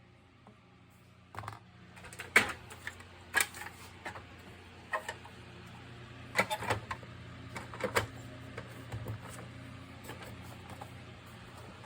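A string of irregular sharp clicks and knocks, like hard objects being handled, over a faint steady low hum.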